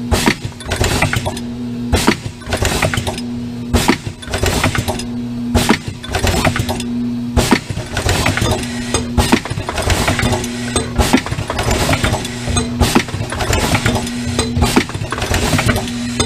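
WCP 12/32 yogurt cup filling machine running through its cycle: a sharp clack about every two seconds as it indexes and fills. Between the clacks a steady hum and hiss run on.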